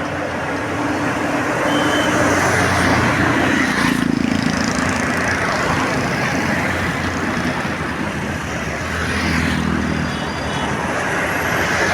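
Road traffic with buses passing close by: engines running under a steady rush of tyre and road noise. It swells louder from about two to five seconds in, and again near the end.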